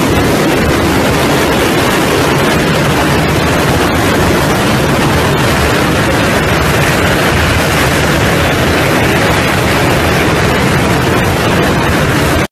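The engines of a large pack of dirt bikes pulling away together from a mass start, merging into one loud, steady wall of noise.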